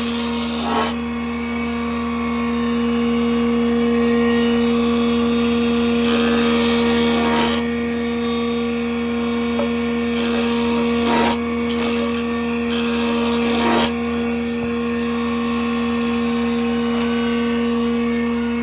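Band saw running with a steady hum, its blade cutting through wood sheet in a few short passes. The longest pass comes about six seconds in, and the others come between about ten and fourteen seconds in.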